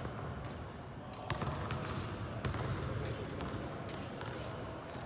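Smallsword fencing footwork: feet thudding on a hard floor, with about seven sharp clicks at irregular intervals.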